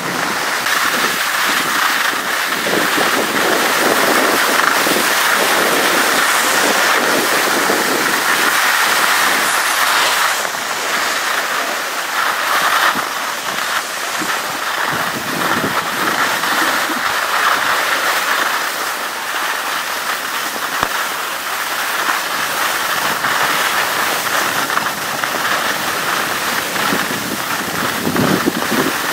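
Steady rushing hiss of skis sliding over packed snow, mixed with wind buffeting the microphone as the camera moves downhill.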